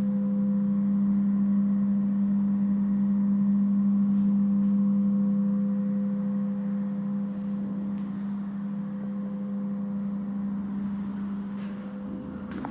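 A steady, unchanging hum at one fixed low pitch, like a motor or an electrical appliance running.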